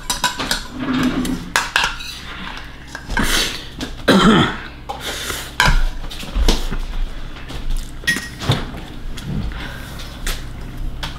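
Ceramic bowls and cutlery clinking and knocking irregularly on a dinner table.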